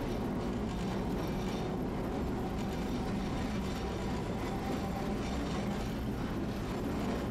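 Tosaden streetcar riding along its tracks, heard from on board: a steady rumble of wheels on rail and running gear.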